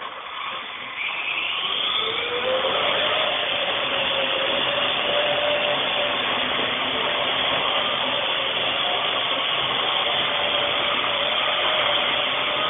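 Parrot AR.Drone quadcopter's four electric motors and propellers spinning up for takeoff, the whine rising in pitch over the first two seconds, then holding a steady buzz as it hovers. It is carrying the added weight of a GoPro camera.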